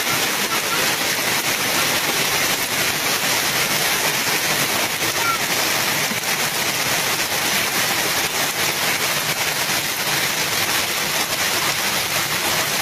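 Heavy rain pouring down over rushing floodwater, a steady, dense hiss.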